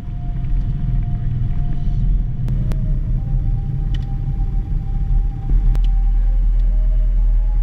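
Piper Archer III's four-cylinder Lycoming piston engine running at low power, heard inside the cabin as a steady low rumble, with a couple of faint clicks. The sound steps up and gets louder about five and a half seconds in.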